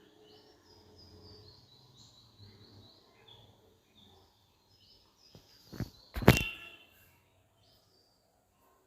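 Two sharp clicks about half a second apart, the second much louder, from a laptop's parts being handled during reassembly. Faint birds chirp in the background throughout.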